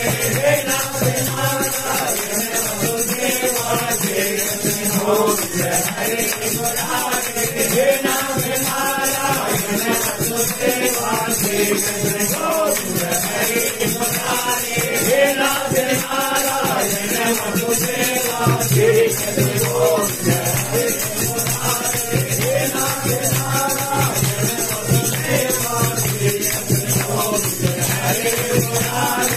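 Hindu devotional kirtan: a man's voice chanting a melody over steady, rapid jingling percussion.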